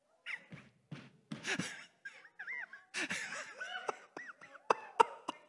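Scattered laughter and short vocal reactions from a congregation, quiet and broken into many brief sounds.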